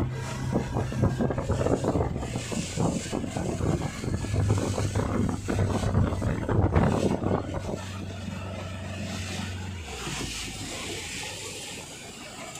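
Tow speedboat engine running steadily, under wind and rushing water spray; the engine note drops away about ten seconds in.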